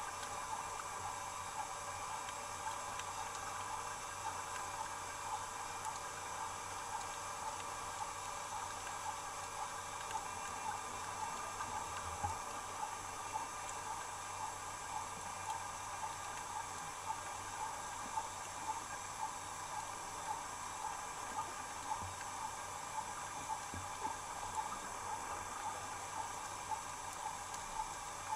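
Steady underwater hiss, with faint clicks about once or twice a second.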